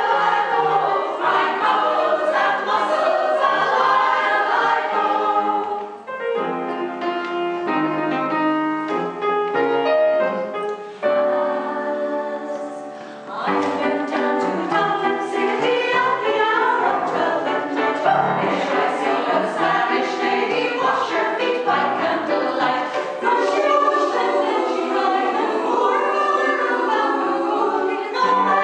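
Choral music: a choir singing, with short lulls about six and thirteen seconds in.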